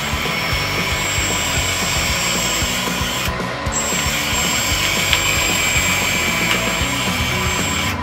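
Electric track drive motor and gearbox of an RC model bulldozer, a LESU 850K, whirring steadily as it drives its right track.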